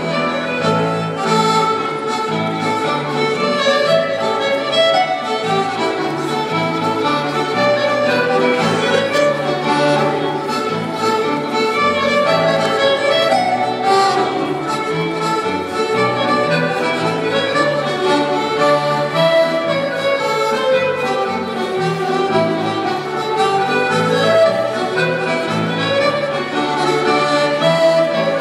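Scottish country dance music with a fiddle lead over a steady, even bass beat, played continuously for the dancers.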